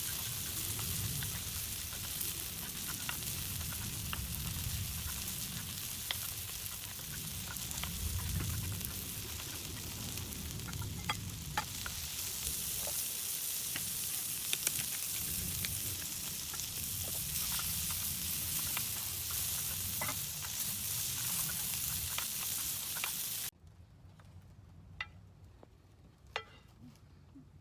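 Food sizzling as it fries, with scattered light clicks from a utensil. The sizzle cuts off suddenly near the end, leaving a much quieter background with a few sharp ticks.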